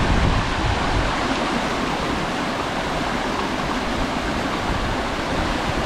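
Falling water rushing steadily, as from a small waterfall or stream.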